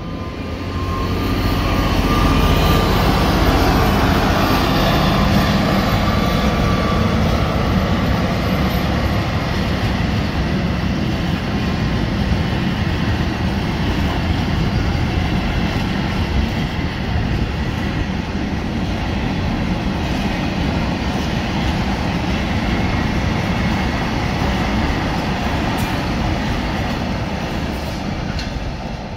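A Class 66 diesel freight locomotive passes, its two-stroke EMD V12 engine loudest a couple of seconds in, with a steady whine for the first several seconds. A long rake of freight wagons follows, rolling past as a continuous rumble that eases off near the end.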